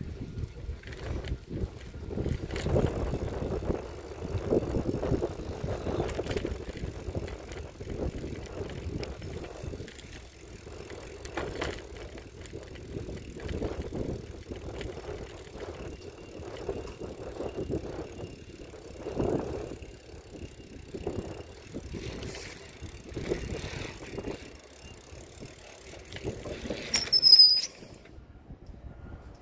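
Bicycle being ridden over pavement and paving, heard from a camera mounted on the bike: continuous rattling and rolling noise with frequent jolts from bumps. Near the end the brakes give a short, high, falling squeal as the bike slows.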